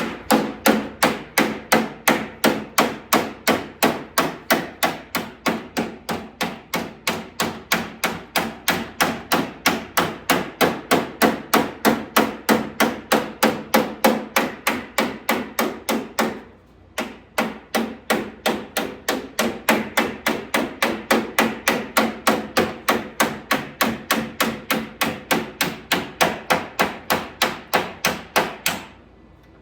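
Hammer blows on a sheet-metal door skin backed by a dolly, hammer-and-dollying the skin's edge over: sharp, evenly spaced strikes at about three a second, with a short pause about two-thirds of the way through and stopping shortly before the end.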